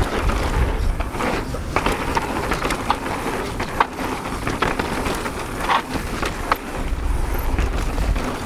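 Mountain bike riding down a rough trail: a steady rolling noise from the tyres on dirt and rock, broken by frequent clacks and rattles from the bike over bumps.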